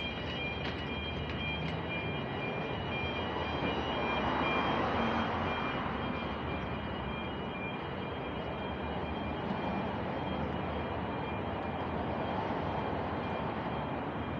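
Busy city street traffic noise: a steady rumble and hiss of passing vehicles, swelling as a vehicle goes by about four to five seconds in. A faint high whine fades out in the first few seconds.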